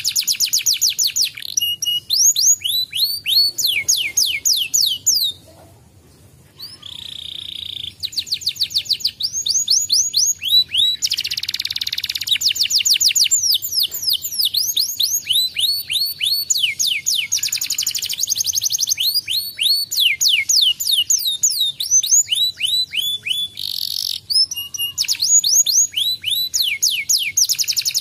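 Domestic canary singing a long, loud song of fast trills: runs of quickly repeated falling notes, broken by a few harsh buzzy notes and a short pause about five seconds in.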